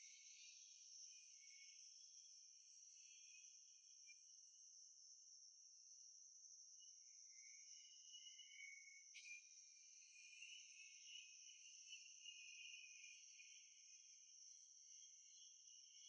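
Near silence with a faint, steady high-pitched insect chorus, and a single faint click about nine seconds in.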